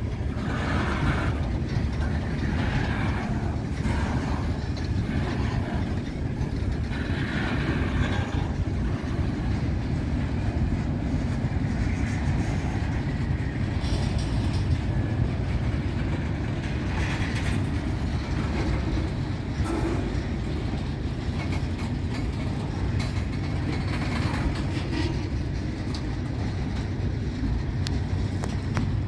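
Loaded freight cars (boxcars, covered hoppers and tank cars) rolling past at a grade crossing: a steady rumble of steel wheels on the rails, with scattered clatter and brief higher-pitched wheel noise.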